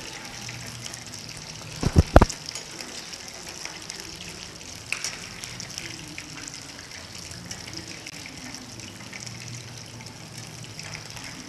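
Battered chicken pieces deep-frying in hot oil: a steady sizzling hiss with fine crackles. A few quick knocks about two seconds in.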